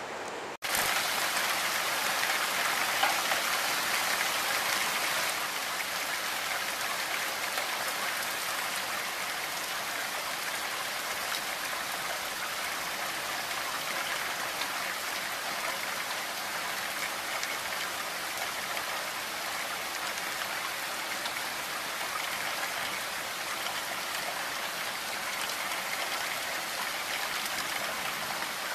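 Heavy rain falling, a dense, steady hiss that cuts in about half a second in and holds even throughout.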